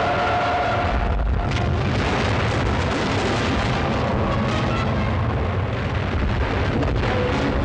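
Battle sound effects from a film soundtrack: a continuous din of cannon fire and shell explosions, with a few sharper blasts standing out, one about a second and a half in and another near the end.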